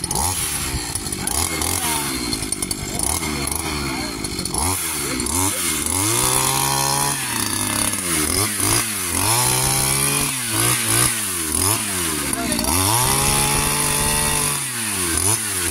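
Petrol brush cutter engine driving a chainsaw attachment, revving up and down repeatedly while the chain cuts into a banana plant; the revs rise, hold high for about a second, then drop back, three or four times.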